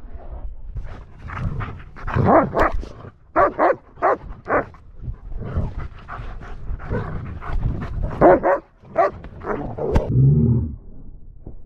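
Dogs barking and yipping in rough play, with a short low growl about ten seconds in: a Belgian Malinois warning off a German Shepherd whose play has become too intense.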